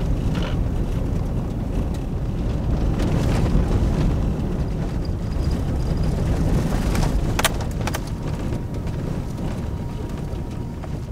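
In-cabin sound of an SUV driving on a dirt track: a steady low rumble of engine and tyres on the rough road, with a couple of sharp knocks about two-thirds of the way through.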